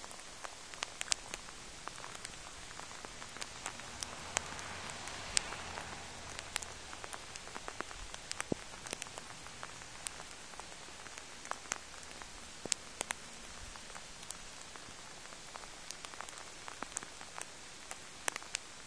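Light rain falling, a steady hiss with frequent sharp ticks of single drops striking close by. A faint low rumble swells and fades about four to seven seconds in.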